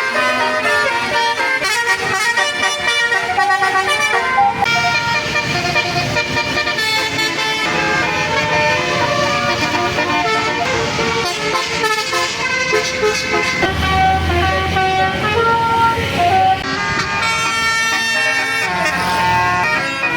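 Indonesian bus 'telolet basuri' multi-tone air horn playing a tune of quick, changing notes. A low rumble swells underneath about two-thirds of the way through.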